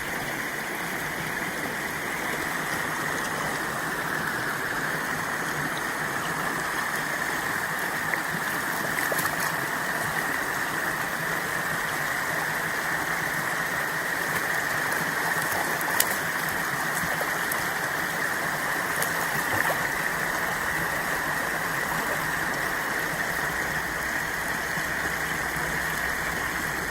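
Water running steadily through a beaver dam: an even, unbroken rushing, with a few faint ticks.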